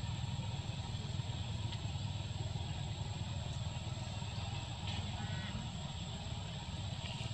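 Steady low rumble of outdoor background noise with a thin, steady high-pitched whine over it; a few faint clicks and a brief run of soft ticks about five seconds in.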